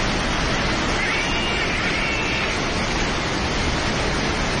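Steady, loud roar of a river in sudden flood, rushing water with no break. A faint high-pitched call or whistle rises and falls about a second in.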